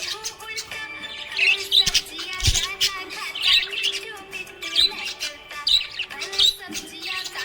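Budgerigars chirping and warbling in quick high bursts, about one burst a second.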